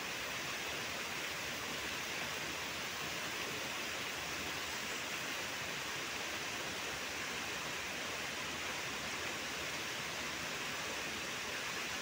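Steady, even hiss with no distinct events.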